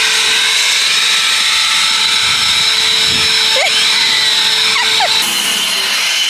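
EGO cordless battery leaf blower running steadily: a loud rush of air with a constant whine. The pitch of the whine shifts slightly about five seconds in.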